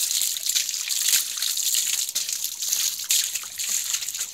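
Water from a hose pipe pouring onto a wet dog's back and splashing onto stone paving, a continuous trickling splash.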